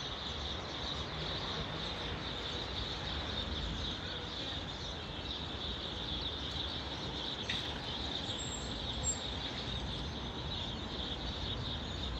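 Steady street background noise: a low rumble under a constant high hiss, with one faint click about seven and a half seconds in.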